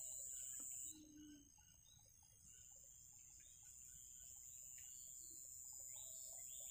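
Faint steady high-pitched insect drone that drops off suddenly about a second in and slowly builds back, with a few faint bird chirps.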